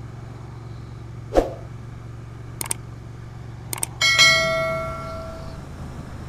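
Subscribe-button sound effect: a short pop, two pairs of mouse clicks, then a bell chime that rings out and fades over about a second and a half. A steady low motorcycle engine and road drone runs underneath.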